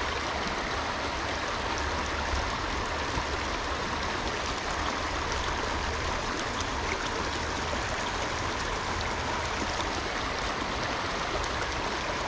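Small creek running: a steady, even rush of flowing water.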